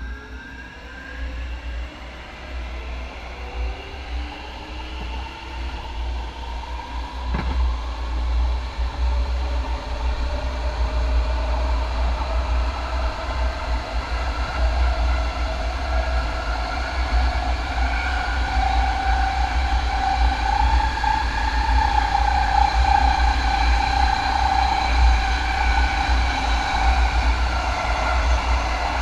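MAX light rail train accelerating away from a station, its traction motors whining in several tones that rise steadily in pitch and grow louder as it gathers speed, then level off. A low rumble of wheels on rail runs underneath, with a single click about seven seconds in.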